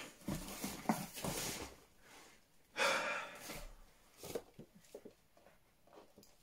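A man breathing out hard and noisily in two bursts of about a second each, the second about three seconds in. Then come a few light clicks and knocks as a plastic-windowed figure box is handled.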